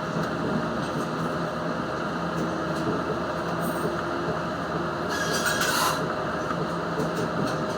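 Adelaide Metro 3100 series diesel railcar under way, heard from inside: a steady running rumble of the engine and the wheels on the rails, with a short hiss about five seconds in.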